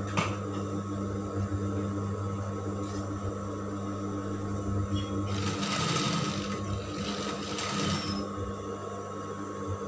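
Sewing machine stitching in two short runs past the middle, over a steady electric hum that carries on between them.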